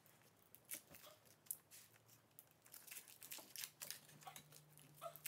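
Faint, irregular crinkling and small crackles of thin foil being peeled off a Kinder Surprise chocolate egg by hand.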